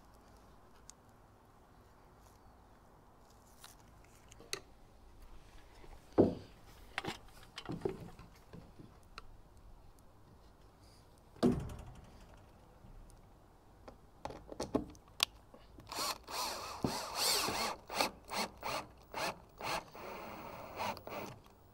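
A few heavy knocks as a plywood panel is set into the deck opening. In the last few seconds, an 18-volt cordless drill/driver runs in short bursts, driving screws through the plywood into the supports beneath.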